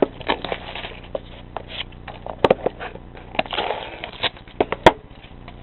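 Packaging of a sealed baseball card box being handled and opened: irregular crackling and rustling with scattered clicks, and two sharper snaps about two and a half seconds and five seconds in.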